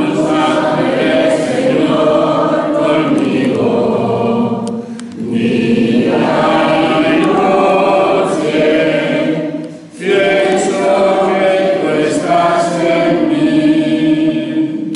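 Church choir singing, its phrases broken by short pauses about five and ten seconds in.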